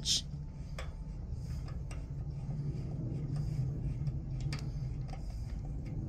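Allen wrench ticking and clinking against the axle bolt in a trike's wheel hub as it is turned and repositioned: a few faint, irregular metallic ticks over a steady low hum.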